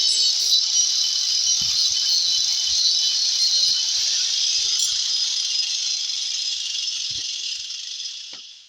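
Cicada buzzing: a steady, high, shrill drone that dies away over about a second near the end. A few faint knocks sound under it.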